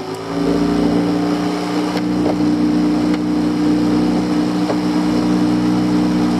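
Small fishing boat's engine throttling up just after the start, then running steadily at an even pitch as the boat gets under way.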